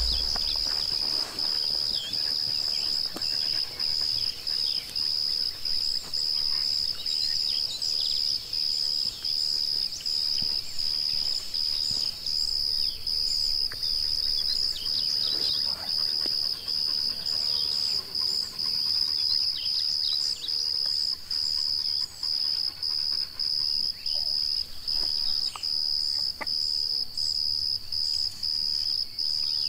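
Insects keep up a steady high-pitched buzz, broken by brief pauses at an even rhythm of somewhat more than one a second. Birds chirp now and then over it.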